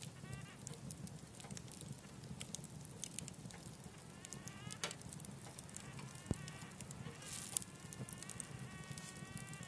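Wood fire burning in a wood stove: scattered crackles and pops over a low steady rumble of flame. A thin whistle from the burning wood rises in pitch several times, then holds steady near the end.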